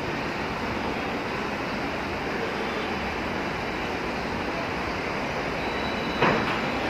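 Steady rushing rumble of a metro train approaching a station platform, with one short sharp knock about six seconds in.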